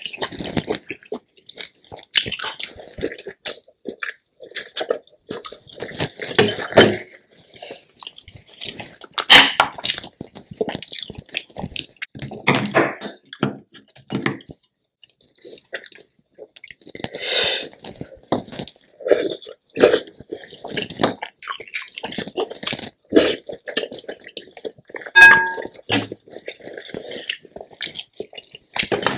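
Close-miked eating of spicy seafood-boil king crab legs: irregular chewing, wet squishing and crackling of crab shell. Now and then a clink against a glass bowl, with one short ringing clink near the end.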